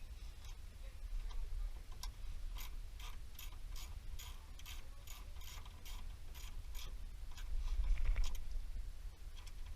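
Ratchet wrench being worked: a regular run of sharp clicks, about three a second, for several seconds in the middle, over a low rumble that swells near the end.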